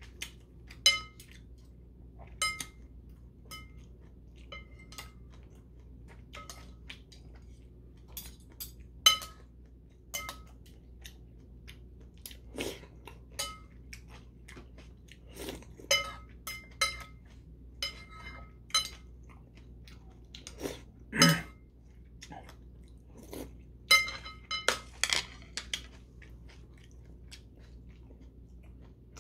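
Metal chopsticks and a spoon clinking against a porcelain bowl again and again as noodles are stirred and picked up, each clink ringing briefly, mixed with close-up chewing of noodles.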